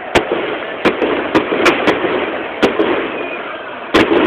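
Firecrackers going off among football supporters, about nine sharp bangs at uneven intervals, two or three close together in places, over the continuous noise of a stadium crowd.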